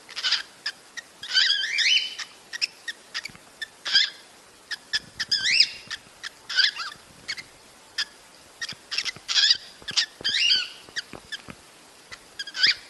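Cockatiel courtship calls: chirps and short whistles that sweep upward, coming about once a second, with quick sharp clicks scattered between them.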